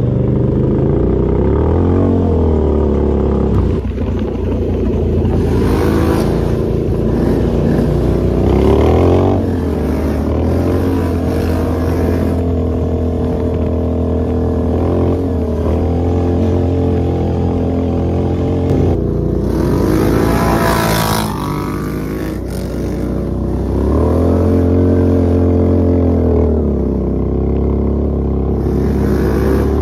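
ATV engine running under load off-road, its pitch rising and falling again and again as the throttle is opened and eased off. A louder rush of noise comes about twenty seconds in.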